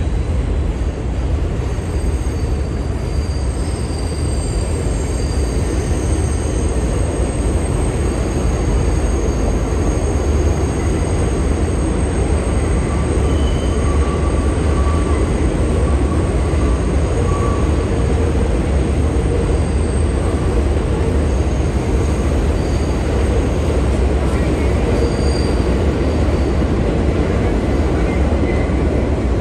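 Elevated subway train running on the steel viaduct overhead: a steady, loud rumble with faint high-pitched wheel squeals.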